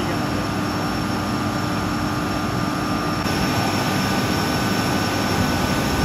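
Hydroelectric turbine and generator running under load: a steady, loud mechanical drone with several steady whining tones on top.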